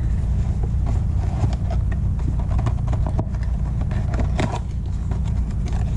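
Fabric drone carrying bag being opened and its contents handled: scattered clicks and rustles of cloth and parts over a steady low hum.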